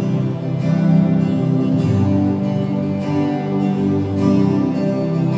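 Instrumental music from a worship band between sung lines, with guitar strumming steady chords.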